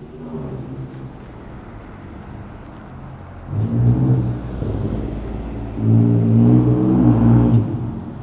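A motor vehicle engine accelerating, loudest in two surges about three and a half seconds and six seconds in.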